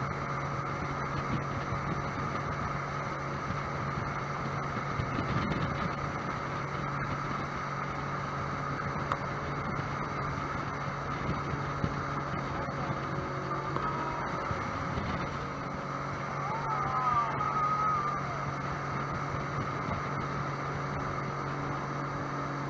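Sea-Doo boat's engine running at a steady cruise with a constant drone, over the rush of water past the hull. Near the end a brief wavering higher tone rises over it for a second or two.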